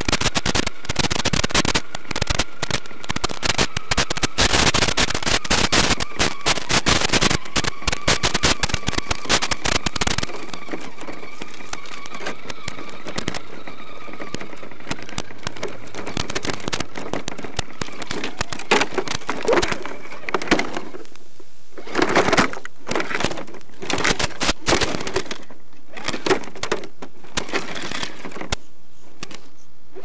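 Onboard-microphone audio from an Axial SCX10 Deadbolt RC crawler sent over a 5.8 GHz analog FPV link. For the first third it is heavy crackling radio static over a faint, wavering whine from the electric motor and drivetrain. After that the static thins out, and short rattles and knocks come through between about two-thirds of the way and near the end.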